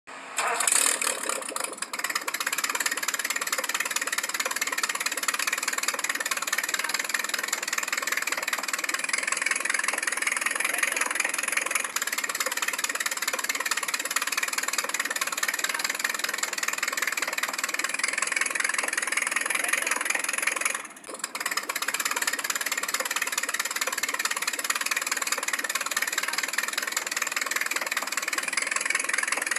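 Car engine running with its exhaust system removed, a steady harsh sound whose pitch brightens a few times as it is revved and falls back.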